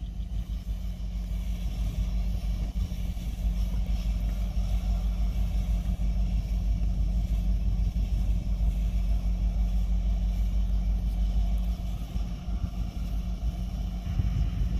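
Distant diesel freight locomotive idling while the train is stopped, a steady low rumble.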